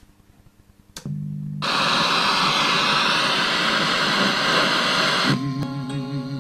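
Antique Herefon radio-phonograph switched on with a click about a second in and a brief low hum, then loud static hiss as the tuning knob is turned between stations. About five seconds in the hiss drops and a station's music comes through.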